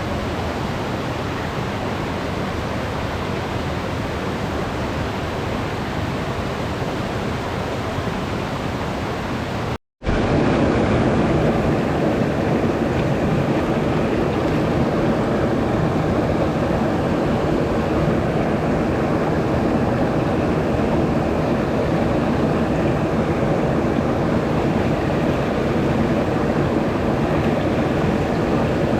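Steady rushing noise of flowing stream water. About ten seconds in it cuts out for a moment, then resumes louder and deeper.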